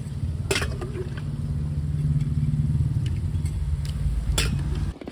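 A steady low engine hum that cuts off abruptly just before the end, with two sharp clicks, one about half a second in and one near the end.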